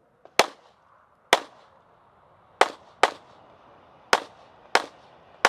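Seven handgun shots at an uneven pace, some in quick pairs about half a second apart, each dying away briefly after the crack.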